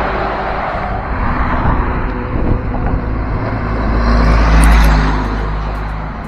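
Heavy trucks passing close by on a road: engine rumble and tyre noise swell twice, once near the start and again, loudest, about four to five seconds in.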